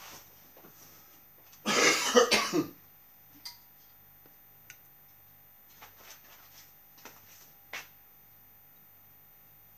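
A man coughing: one loud fit lasting about a second, about two seconds in. It is a cough from a heavy cold.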